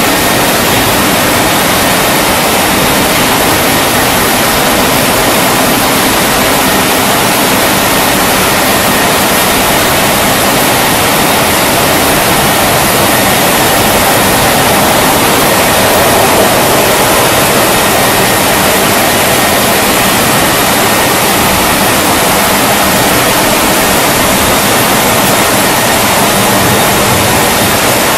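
Wesumat rollover car-wash gantry brushing a car: rotating textile brushes sweeping over the wet body make a loud, steady rushing, with a faint hum from the drive motors underneath.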